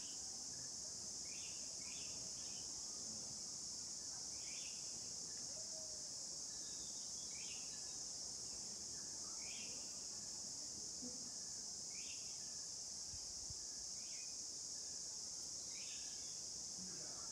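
Steady, unbroken high-pitched chorus of insects such as crickets, with short chirps recurring every second or two over it.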